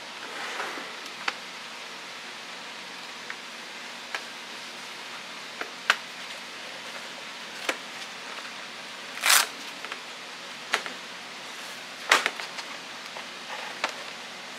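Light handling of a hard-shell zippered tablet carrying case: a dozen or so short clicks and taps as the lid is lifted and the interior is touched, with a soft rustle near the start, over a steady hiss.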